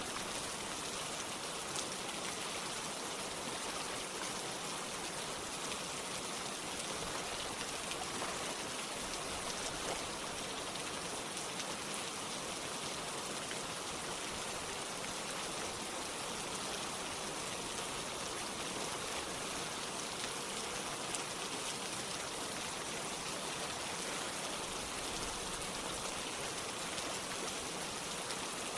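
Steady rain mixed with running water: an even hiss with faint, scattered drop ticks.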